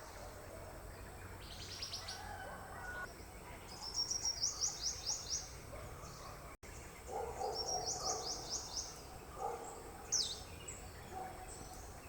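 Forest birds singing: a high, rapid phrase of about six quick notes heard twice, about 4 s and 7 s in, with scattered other calls and a falling note around 10 s.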